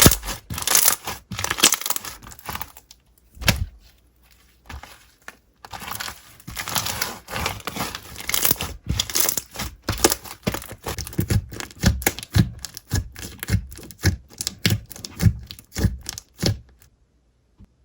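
Slime being squeezed, poked and stretched by hand, giving a quick run of crackling clicks and pops with squishy stretches between; it stops abruptly near the end.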